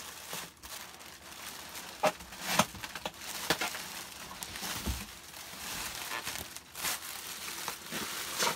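Plastic air-cushion packaging wrap crinkling and rustling as it is handled and pulled out of a cardboard box, with sharp crackles every second or so.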